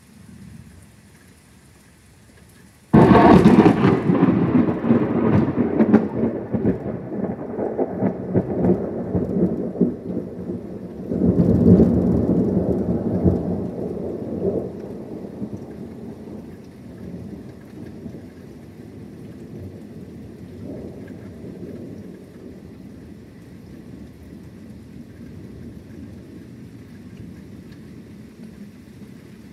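A thunderclap breaks suddenly about three seconds in and rolls on as loud rumbling, with a second loud peal around eleven seconds, then fades slowly. Rain falls throughout.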